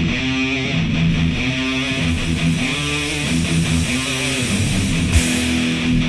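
Recorded heavy metal band intro: distorted electric guitar chords are held and change about once a second. About five seconds in there is a sharp hit with a wash of high hiss.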